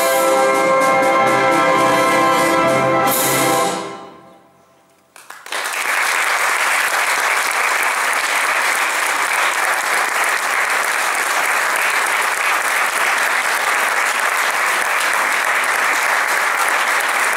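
Concert wind band holding its final sustained chord, which is released about three and a half seconds in and dies away. After a moment of quiet, the audience breaks into steady applause that continues to the end.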